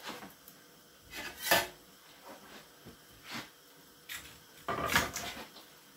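A few short scraping and rubbing sounds of cookware and utensils being handled, three of them louder than the rest.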